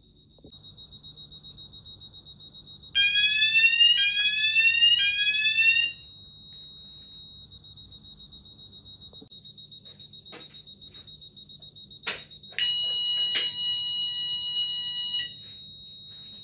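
Fire alarm sounder going off in two loud bursts: first a rising sweep tone repeated three times, about once a second, then a few seconds later a steady continuous tone. A high, rapidly pulsing beep runs underneath, and a few sharp clicks come between the bursts.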